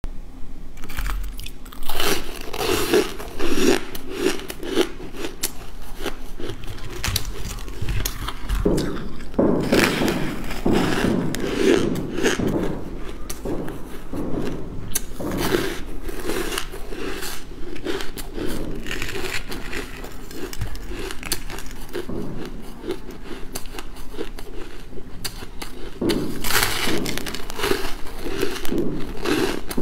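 Close-miked biting and crunching of chunks of frosty, coloured frozen ice, with repeated crackly crunches and chewing. The loudest bites come about two and three and a half seconds in.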